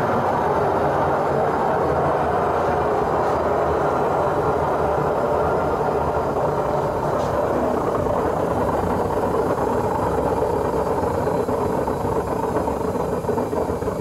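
Samsung front-loading washing machine with its drum spinning, giving off a loud, steady rumbling hum. The hum comes from a worn drum bearing, with play in the drum, which the owner says clearly means the bearing has failed. The noise eases slightly near the end.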